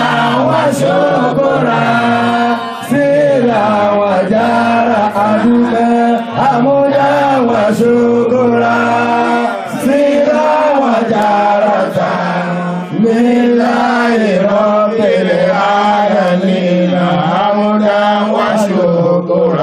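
A man's voice chanting an Islamic devotional song into a microphone over a PA, in long held, gliding notes sung in phrases of about three seconds each.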